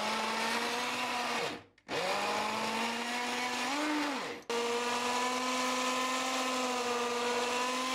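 Small electric press-top chopper (mini blender) motor whining as it purées frozen banana slices and strawberries with milk. It runs in three spells: it winds down and stops after about a second and a half, runs again, rises briefly in pitch and winds down again about four seconds in, then starts again and runs steadily.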